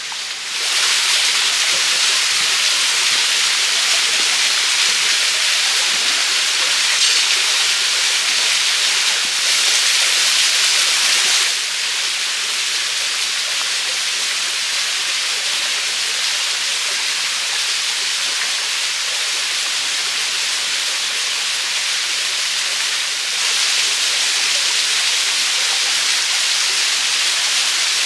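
Running water of a forest stream and small waterfall, a steady rushing hiss. It drops a little about twelve seconds in and rises again about twenty-three seconds in.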